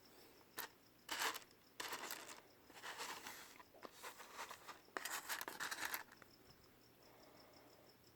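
Rustling and clicking from handling rough opal stones, in a string of short bursts that stops about six seconds in. Crickets chirp steadily in the background.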